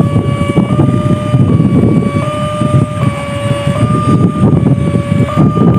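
Level-crossing warning alarm sounding a steady two-tone signal that steps back and forth in pitch about every second, warning of an approaching train. A loud low rumbling noise runs underneath it.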